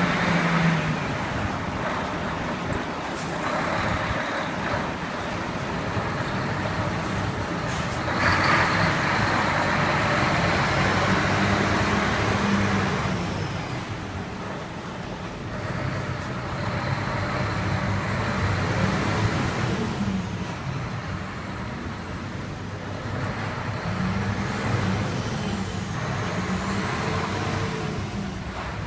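Heavy diesel concrete-mixer trucks running and driving off one after another, their engine note rising and falling as each pulls away.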